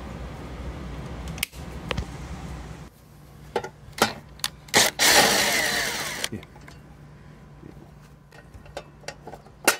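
A few clicks, then a cordless drill/driver runs for about a second and a half about five seconds in, driving a screw on the cover of a hot tub's outdoor GFCI breaker box; light clicks and knocks of handling follow.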